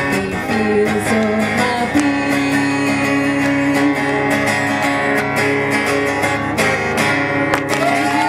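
Acoustic guitar strummed steadily under a woman's singing voice, with a long held note a couple of seconds in.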